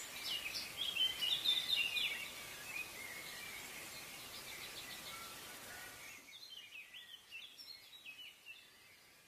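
Wild birds chirping and singing in short calls over a steady background hiss, busiest in the first two seconds; about six seconds in the hiss drops away, leaving fainter birdsong.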